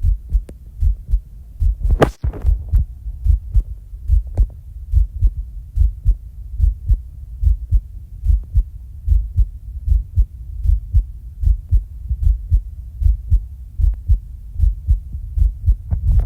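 A person's fast heartbeat, low even thumps in quick succession, heard during a breath-hold after exercise: the raised heart rate of exertion. One brief sharp sound about two seconds in.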